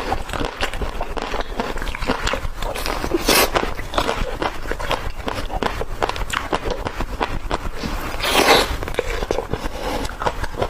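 Close-miked eating of ice cream: a dense run of wet mouth clicks, smacks and crunchy bites, with two louder crunching bites about three seconds and eight and a half seconds in.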